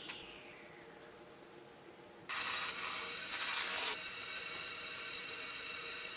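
Table saw blade coasting down after switch-off, a falling whine. About two seconds in, a band saw is running and cutting plywood for a second or two, then runs on steadily without load.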